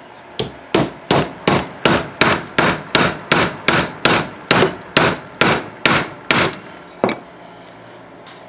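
Hammer blows driving a bolt-extractor socket down onto a seized, rounded-off brake bleeder screw on a rusty caliper, metal striking metal. About eighteen quick, even strikes come at roughly three a second, with a last blow after a short pause.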